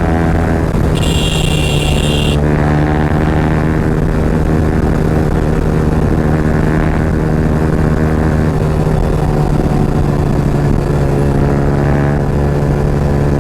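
Yamaha R15's single-cylinder engine through an aftermarket Akrapovic exhaust, running loud at steady revs while riding. A brief high-pitched tone sounds about a second in.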